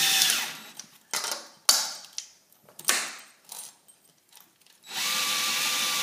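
DeWalt cordless drill driving a small self-tapping screw into the patio door frame. The motor runs and stops just after the start, a few short knocks and clicks follow, and then it runs steadily again about five seconds in.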